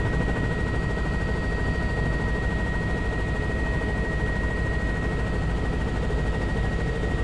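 Helicopter in steady flight, heard from on board: a rapid, even rotor beat under a steady high whine.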